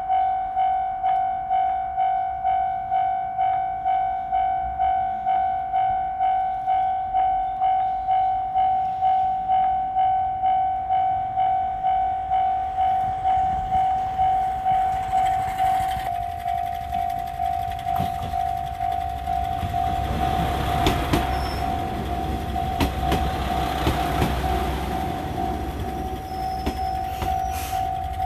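Japanese railway level-crossing warning bell ringing steadily, about two strokes a second. About halfway through, a diesel train passes over the crossing: its running noise swells under the bell, with sharp clacks of wheels over rail joints.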